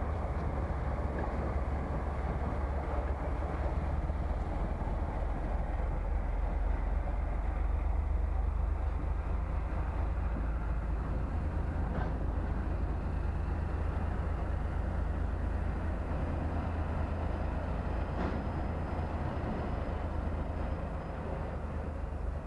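TEM18V diesel shunting locomotive hauling open freight wagons over a level crossing: a steady low rumble with a few faint clicks, easing slightly near the end as the train moves away.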